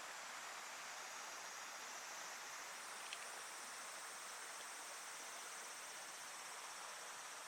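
Faint outdoor ambience: a steady hiss with a high, continuous chorus of insects trilling, which steps up in pitch a little under three seconds in. A single faint click comes about three seconds in.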